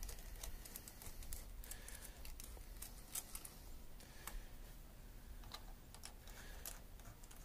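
Faint, irregular small metallic clicks of stainless worm-drive hose clamps being turned loose with a small socket driver on a marine engine's rubber cooling hoses.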